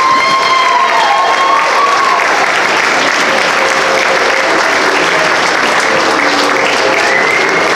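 Audience applauding steadily, with a few held pitched notes over it in the first couple of seconds and again near the end.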